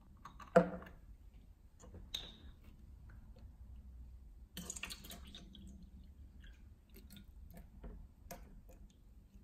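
Handling of a plastic water bottle and cups on a wooden table: a sharp knock about half a second in as something is set down, small plastic clicks and crinkles, and water poured from the bottle into a clear plastic cup a little before halfway through, ending in scattered clicks.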